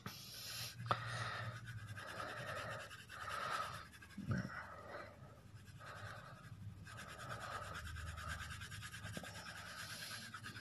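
2B graphite pencil shading on paper: faint, repeated scratchy strokes laying in a second layer of tone.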